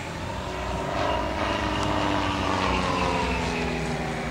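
Single-engine propeller plane flying past overhead, its engine drone sliding down in pitch as it passes.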